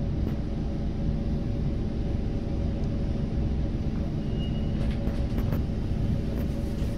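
Steady low hum and rumble of a C151 metro train standing at the platform with its doors open, with a few faint clicks about five seconds in.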